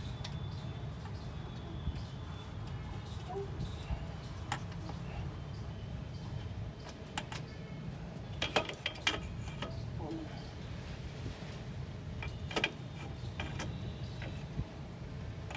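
Scattered light metallic clicks and knocks as a new clutch pressure plate is handled and seated against the flywheel, loudest in a quick cluster just past the middle, over a steady low hum.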